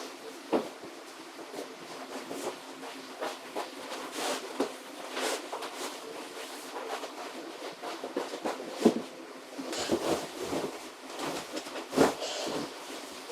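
Irregular rustling, clicks and knocks of things being handled, with sharper knocks about 9 and 12 seconds in.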